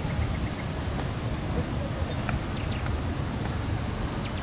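Steady rushing of falling and running water, with insects chirping in fast, evenly spaced pulses above it.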